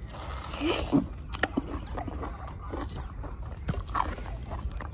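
A person biting into and chewing a ripe mango with its skin on, with a few sharp clicks as she eats.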